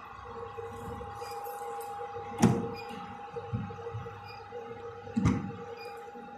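Two sharp thumps, each with a short low boom after it, about three seconds apart and the first the louder, over a steady electronic hum of two tones.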